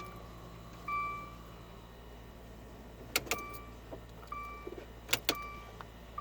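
A 2015 Dodge Dart SXT's dashboard warning chime repeats about once a second while the key is worked in the ignition, giving a few sharp clicks. The engine does not crank: it is a no-start caused by a faulty neutral safety switch.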